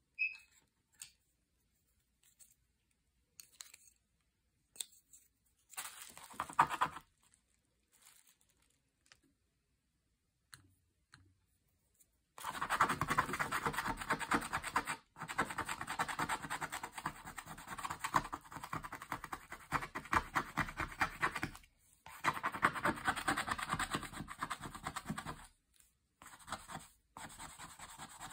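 A stylus scratching the coating off a scratch-art sheet in quick short strokes. For the first half there are only a few faint ticks and one brief burst of scratching; from about halfway it turns into steady rapid scratching, broken by a few short pauses.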